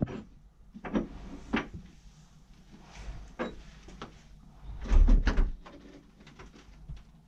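Scattered knocks, scrapes and clothing rustle as a person squeezes through a tight gap, his body and gear bumping against the wall and edge right at the camera. About five seconds in there is a louder, heavy bumping.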